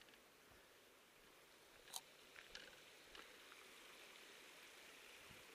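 Near silence: a faint hiss, with one sharp tick about two seconds in and a few fainter ticks after it.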